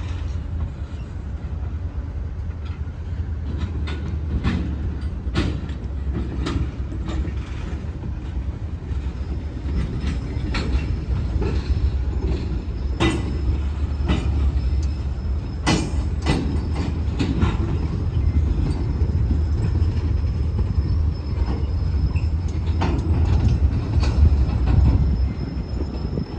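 A freight train moving slowly past during switching, with the diesel locomotive's low rumble under repeated sharp clacks and knocks from the wheels and cars. A faint thin wheel squeal sets in about a third of the way in and carries on.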